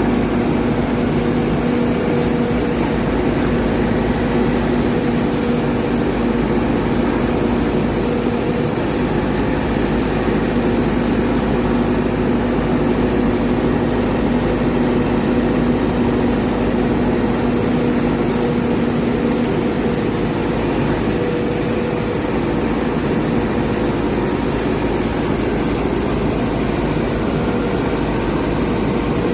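Backhoe loader's diesel engine running steadily, with a high whine above it that wavers in pitch.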